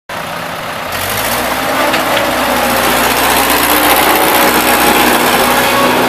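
Case 1845B skid steer engine running as the loader drives along, getting louder about a second in.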